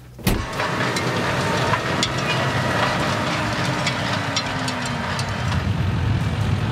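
121-horsepower four-cylinder tractor running under load as it pulls a 6-metre spring-tine cultivator set to work deep, starting suddenly about a quarter second in: a steady engine rumble under a rushing noise with scattered clicks and rattles.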